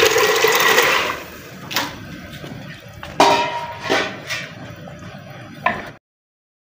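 A hissing rush for about a second, then a handful of sharp clicks and knocks, a couple with a brief ring. The sound cuts off abruptly about a second before the end.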